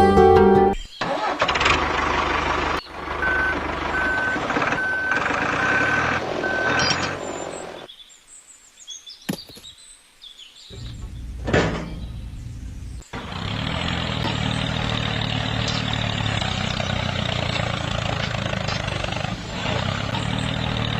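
A small motor running, with a row of about five evenly spaced high beeps a few seconds in; after a quiet pause it settles into a steady hum.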